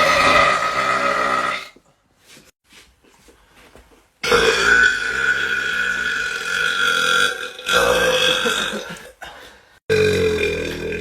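Men burping loudly on purpose: a series of long, drawn-out belches with short quiet gaps between them, the longest lasting about three seconds.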